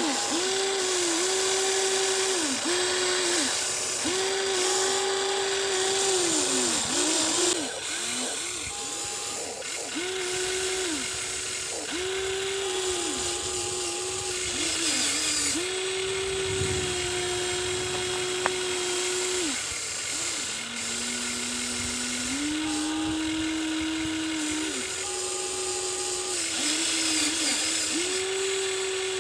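Electric motors of a Huina 1593 RC excavator whining in repeated short runs that start and stop every second or two, the pitch sagging as the motors take load and rising again as they ease off.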